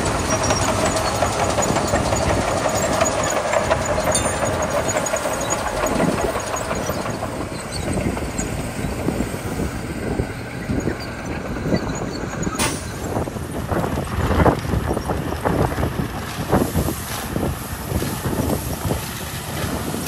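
Heavy diesel machinery running: a crawler bulldozer's engine with its blade pushing gravel. After a sudden cut about 13 seconds in, a dump truck's engine running with gravel sliding and pouring from its tipped bed in uneven rushes.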